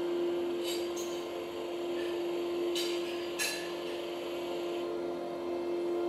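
RTI Nano 30 RGB laser projector running with a steady hum and a light whir, with a few short clicks in the first half.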